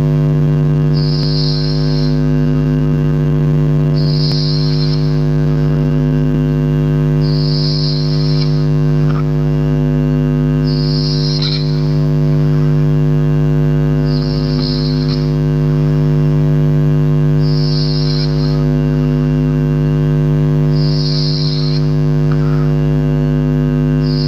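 A sleeping person snoring, with a breathy rasp about every three seconds, over a loud, steady electrical-sounding hum.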